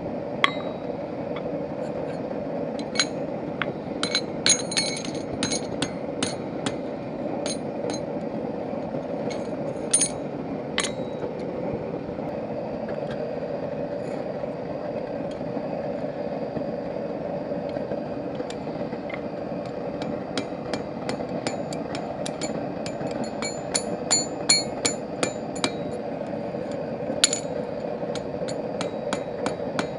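Hammer blows on a forged iron hinge, bending its tenon over. The strikes ring and come scattered at first, then in a quicker run through the second half, over a steady rushing noise.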